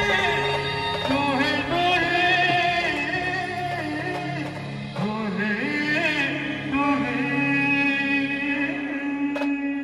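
Maharashtrian brass band playing a slow melody, the lead horns holding long notes that bend in pitch, with little drumming underneath.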